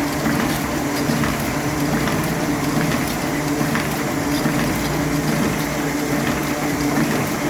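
Toko 7000 small offset printing press running steadily: a constant mechanical hum with a continuous hiss and light clicking of the moving parts.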